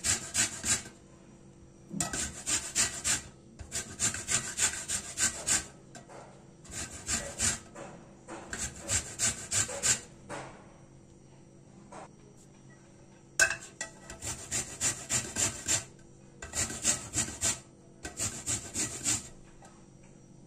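Lemon rind being grated on a stainless steel box grater: quick, rhythmic scraping strokes in runs of a second or two, with short pauses between them as the lemon is turned or changed.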